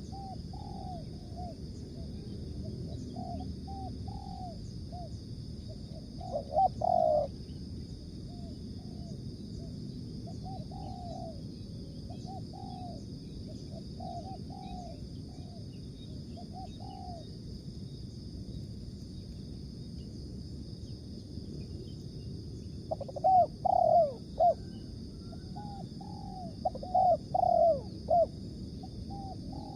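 Spotted doves cooing in repeated short phrases: fainter coos run on throughout, and a louder, closer dove coos briefly about six seconds in and again in several phrases near the end, over a steady high hiss.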